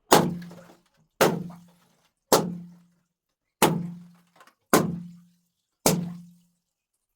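Water balloons bursting, six sharp pops about one a second, each dying away quickly with a low ring.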